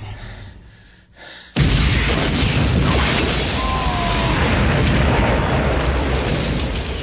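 Background electronic music fades out; after a short lull, live street traffic noise cuts in abruptly about a second and a half in as a steady, even rush, with a brief faint squeal near the middle.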